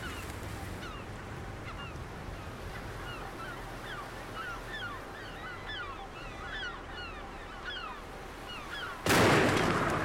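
A flock of seabirds calling over open sea: many short, quick chirping calls overlapping, over a low steady rumble. Near the end a sudden loud boom cuts in and fades over a second or so.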